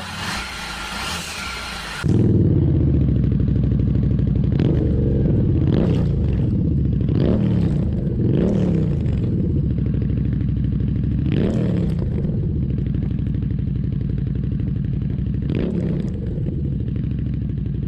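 Harley-Davidson Street 750's V-twin engine running loud through MotoMiu twin aftermarket exhausts. It idles, then from about two seconds in it is much louder and is revved in about six short blips that rise and fall back to idle.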